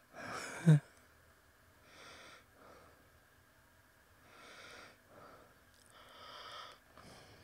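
A person breathing close to a microphone: four slow, hissy breaths roughly two seconds apart, with a short voiced vocal sound, falling in pitch, just under a second in that is the loudest moment.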